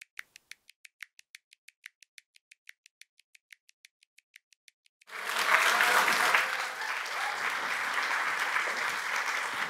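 An audience applauding, starting suddenly about halfway through and carrying on steadily. Before it there is a fast, even run of faint clicks, about six a second.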